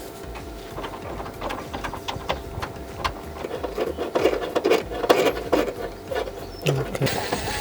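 Irregular clicking, rattling and rubbing of tools and car body parts being worked loose, heavier about halfway through.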